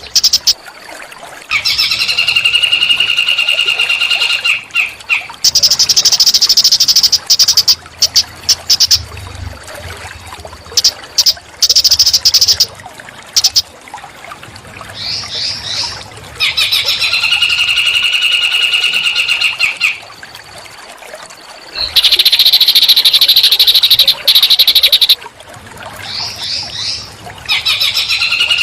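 A small songbird singing loud, repeated phrases a few seconds long: fast high trills with a steady ringing note beneath, alternating with higher rasping phrases, each followed by a short pause.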